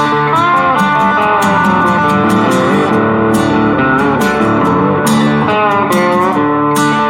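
Background music led by electric guitar, with bending guitar notes over a steady beat.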